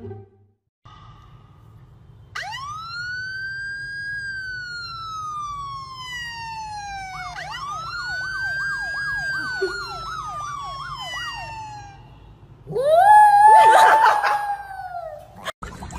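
An electronic siren wails, rising and then slowly falling. A second wail follows with a fast warbling yelp of about four sweeps a second laid over it. Near the end a small white dog howls loudly for about three seconds in reply to the siren.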